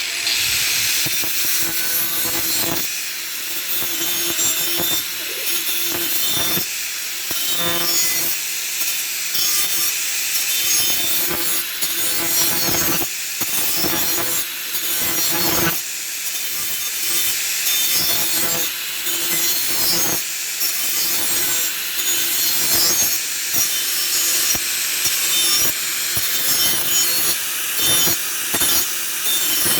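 Power grinder running continuously, grinding an edge onto a knife blade cut from an old steel saw blade. It starts suddenly at the beginning, with a steady hum under the harsh grinding hiss, and the noise dips briefly several times.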